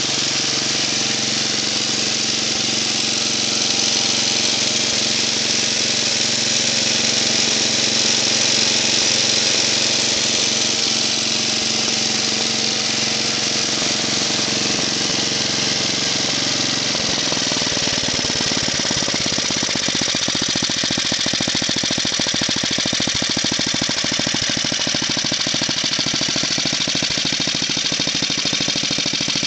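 Tecumseh HS40 4 hp single-cylinder engine on a snowblower running steadily. About halfway through its sound changes, and the separate firing strokes become plain as a rapid beat.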